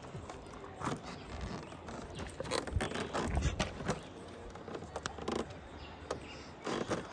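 Irregular hollow knocks and clacks from a bamboo raft being poled through shallow water over stones, with some low thumps among them.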